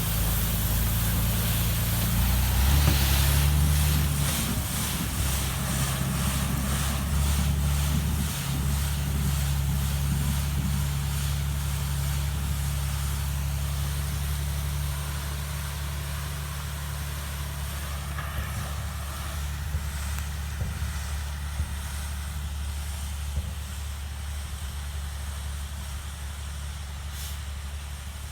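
A heavy vehicle or machine engine running, revving up about three seconds in, then running steadily and slowly fading, with a short hiss near the end.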